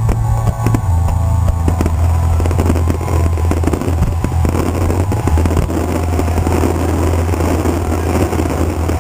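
Aerial fireworks bursting and crackling, with many sharp cracks and pops over a steady low rumble.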